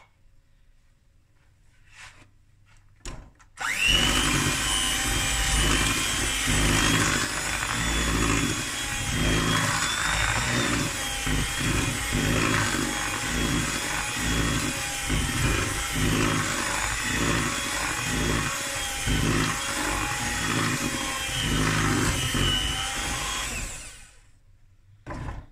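Electric hand mixer switched on about four seconds in, its motor whining up to speed and then running steadily as the beaters churn thick cake batter in a plastic bowl; it stops about a second and a half before the end.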